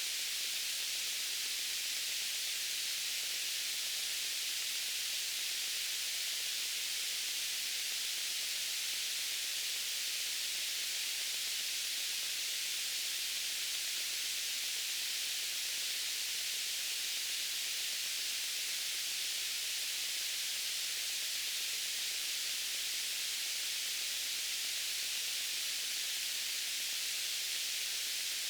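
Steady white-noise hiss, high and even, with no change in level.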